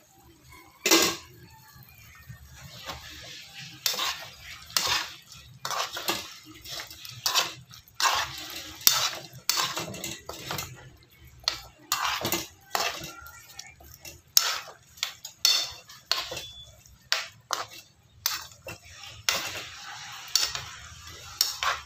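A metal spoon knocking and scraping against a metal cooking pot while chicken in sauce is stirred: a long run of separate clanks about every half second to second, with the loudest knock about a second in.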